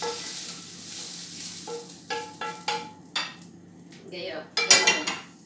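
Stir-fried vegetables scraped out of a non-stick frying pan onto a ceramic plate with a wooden spatula. A fading sizzle, then about five ringing knocks of spatula against pan and plate, and a louder scrape near the end.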